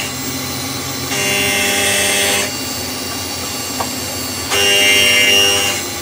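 CNC lathe's live-tooling end mill milling a flat on a chucked workpiece: a steady machine hum with louder cutting noise that comes in twice, about a second in and again near four and a half seconds, each pass lasting about a second and a half.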